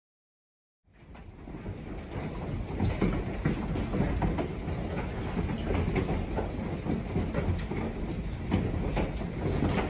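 Heavy storm rain beating on a window pane: a dense, steady clatter of sharp taps that fades in about a second in and builds to full strength.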